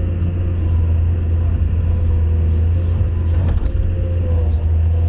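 Excavator's diesel engine running at a steady, deep drone, with a faint steady whine above it and a brief rattle of clicks about three and a half seconds in.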